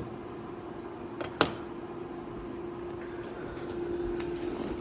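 Kitchen noise: a steady appliance hum with two short, sharp knocks, one right at the start and a louder one about a second and a half in.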